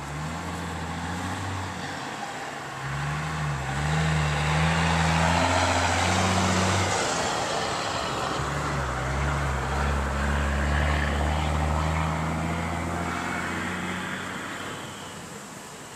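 A motor vehicle's engine running and passing by, its tone shifting in pitch. It swells twice through the middle and fades near the end.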